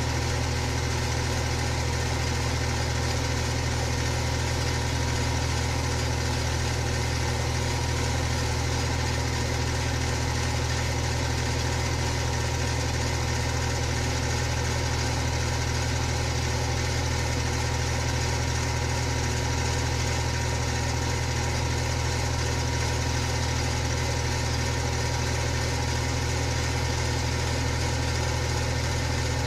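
Electric fan running steadily: a constant low motor hum with steady higher tones over an even rush of air.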